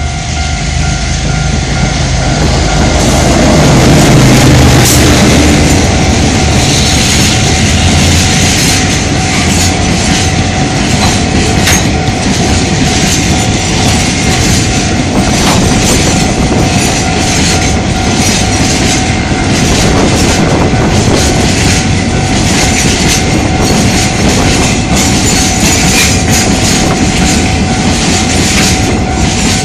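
Diesel locomotive R51 passes close by, its engine loudest about four seconds in. A long train of empty coal hopper wagons follows, rattling and clattering rhythmically over the rail joints. A level-crossing warning bell rings steadily underneath.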